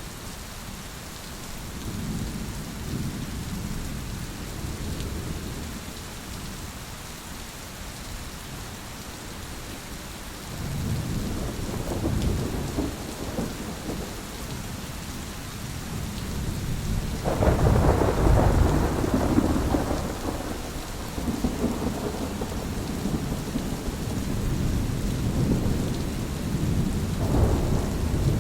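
Steady rain with rolling thunder: low rumbles swell and fade, and the loudest peal breaks sharply about two thirds of the way through, followed by another swell near the end.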